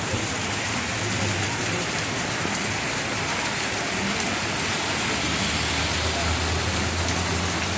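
Heavy rain pouring steadily onto a wet, puddled street. A car engine runs slowly close by, growing louder in the second half.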